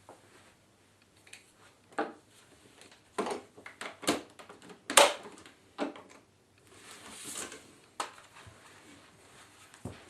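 Hard plastic vacuum cleaner parts and packaging being handled: a series of clicks and knocks, the loudest about five seconds in, with a brief rustle around seven seconds in. The cleaner's motor is not running.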